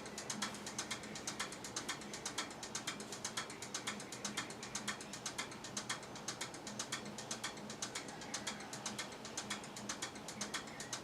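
Rapid, even clicking of a ratchet mechanism, about five clicks a second, keeping on without a pause.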